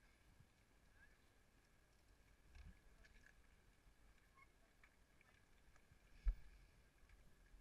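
Near silence, with a few faint knocks and one short, dull thump a little over six seconds in.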